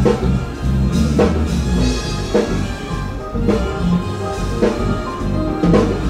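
Background music with a drum kit and bass keeping a steady beat, a strong drum hit a little more than once a second.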